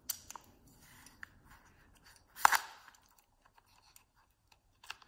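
Hand tools being handled and set down: a few light clicks and taps, with one louder sharp clack about two and a half seconds in.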